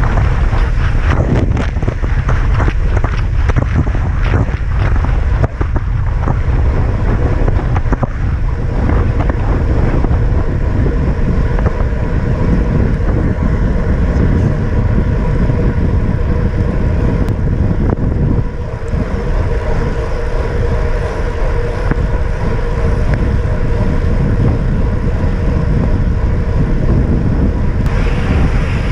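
Heavy wind buffeting on a handlebar camera's microphone from a bicycle moving at speed: a loud, steady rushing roar, strongest low down, that eases slightly about two-thirds of the way through.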